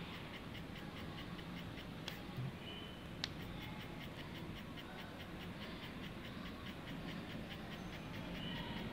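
A handheld 3D pen's filament-feed motor running while it extrudes plastic, a steady whir with a fast, even ticking from its drive. Two sharp clicks about two and three seconds in.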